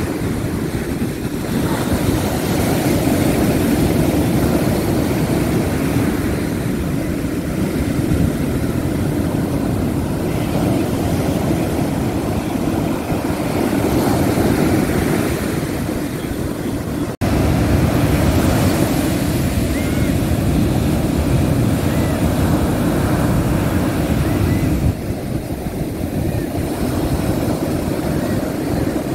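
Ocean surf breaking and washing onto a beach: a continuous low, rushing noise that swells and eases with the sets. It cuts out for a split second about halfway through.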